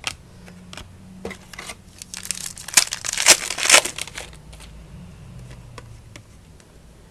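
Crinkling and tearing of a trading-card pack wrapper, with scattered crackles that grow dense from about two to four seconds in.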